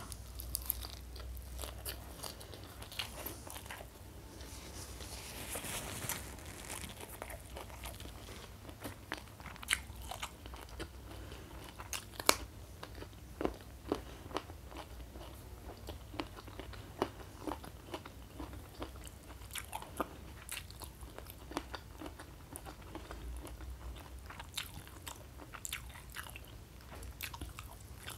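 A person chewing a mouthful of rice, sambal and raw leafy greens close to a clip-on microphone: irregular crisp crunches and wet mouth clicks, one louder crunch about halfway through.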